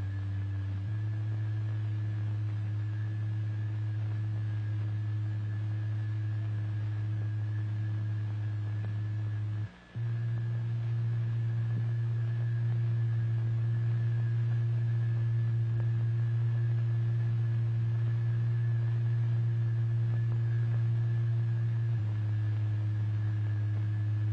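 Steady low electronic sine tone from the oscillator that sets the fluid vibrating in a cymatics experiment. It steps up slightly in pitch about a second in, cuts out for an instant near the middle, returns a little higher and louder, and steps back down near the end.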